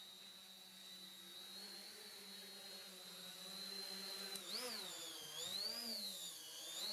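Electric motors and propellers of a small multirotor drone whirring in flight: a steady hum that, from about four seconds in, rises and falls in pitch several times as the motors speed up and slow down to manoeuvre.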